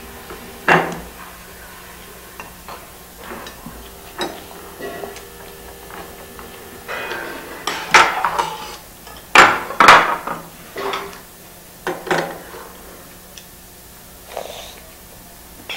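Dishes and cutlery being handled: irregular clinks and clatters, thickest and loudest about eight to ten seconds in.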